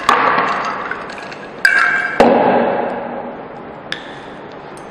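Ice cubes clinking against a glass container as they are taken out: a few sharp clinks with short ringing, the loudest about two seconds in.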